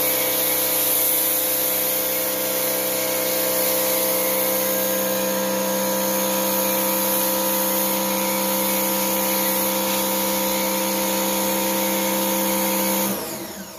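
Pressure washer running steadily as its foam cannon sprays car-wash foam, a motor hum under the hiss of the spray. It winds down and stops near the end as the trigger is let go.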